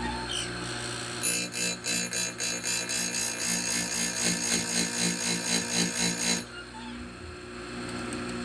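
Oregon bench chain grinder with its motor running, and a run of rhythmic clicking, about three a second for some five seconds, as the saw chain's links are pulled through the grinder's chain vise.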